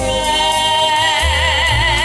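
A woman singing a long held note with a wide vibrato, backed by a band with deep bass notes, live through a stage sound system.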